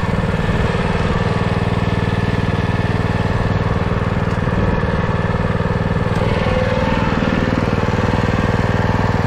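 Small gas engine of a hydraulic log splitter running steadily.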